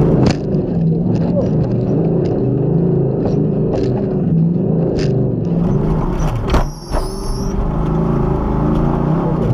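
The Beast347 rally buggy's V8 engine running hard, heard from the cockpit. Its pitch rises and falls with throttle and gear changes, with rattles and knocks from the car over rough ground. The engine briefly drops off about two thirds of the way in, with a short high, wavering tone.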